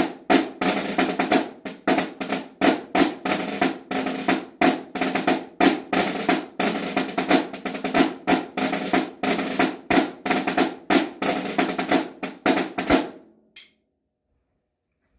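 Snare drum playing a pipe-band style 2/4 march setting with rolls and accented strokes, ending with a final stroke about 13 seconds in, followed by silence.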